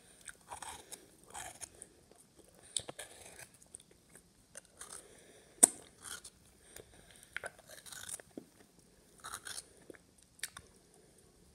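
Teeth scraping the cream filling out of an Oreo biscuit and chewing it, close to the microphone, in irregular short bursts with one sharp click about halfway through.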